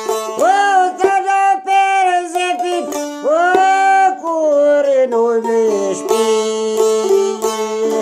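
A man sings long, wavering sung lines over a long-necked lute that is plucked rapidly above a steady drone note. His voice falls away about six seconds in, leaving the lute playing alone.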